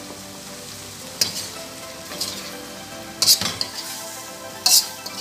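Shrimp, tomatoes and onions frying with a steady sizzle in a wok as a spatula stirs them, scraping against the pan four times, about once a second.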